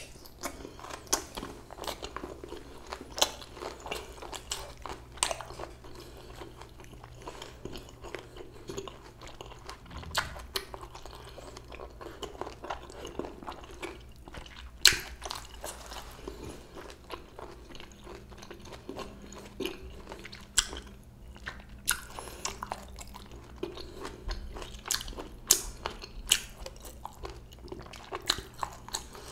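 A person chewing a bossam meal close to the microphone: steady mouth sounds with frequent crisp crunches and sharp clicks at an irregular pace, one especially sharp one about halfway through.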